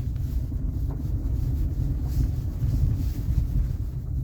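Cabin road noise of a Chery Tiggo 8 Pro Max on rough, broken road: a steady low rumble with a faint knock about a second in. The driver takes the knocking, felt through the steering wheel on bumps, for a worn steering rack.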